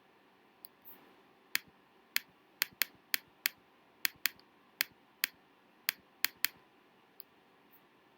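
A series of about a dozen sharp clicks at irregular intervals, some in quick pairs, over about five seconds.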